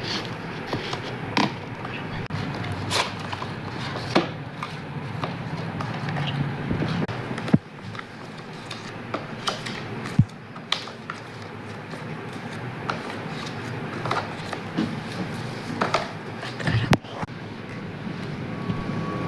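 Packaging being handled: scattered clicks, knocks and rustles over a steady background hiss, with two sharper knocks about seven and ten seconds in.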